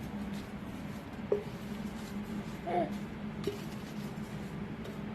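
Quiet room tone with a steady low hum and a few faint, brief handling sounds.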